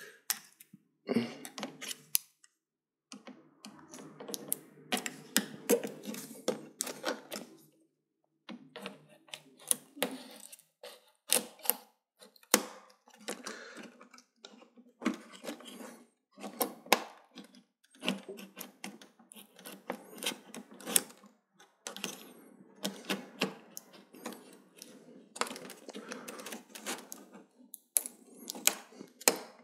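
Irregular plastic clicks, taps and knocks from hands prying at and handling a TV's stuck-on plastic frame and parts during disassembly, in clusters with short pauses.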